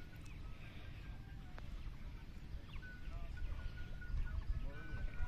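Riverside outdoor ambience: a steady low rumble with faint short bird calls, and faint voices near the end.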